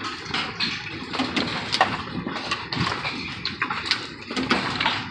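Hailstorm: hailstones striking the ground and nearby surfaces in irregular sharp knocks and clicks, over a steady rushing noise of the falling hail and rain.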